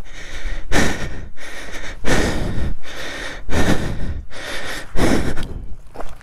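A person breathing hard and close to the microphone, with loud, heavy breaths about one every second and a half: he is out of breath from climbing a steep slope on foot.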